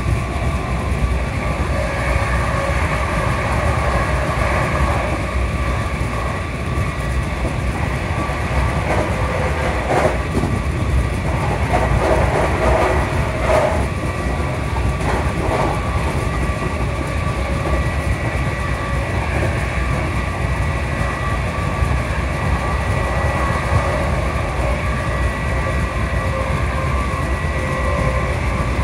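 Steady running noise inside a moving ScotRail passenger train carriage: the rumble of wheels on the track with a faint steady whine. A few clicks and knocks come through around ten to sixteen seconds in.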